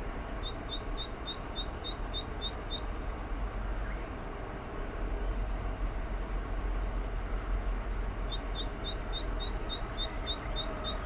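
Male zitting cisticola singing a run of short, high, evenly repeated notes, about four a second, then falling silent and starting a second run near the end.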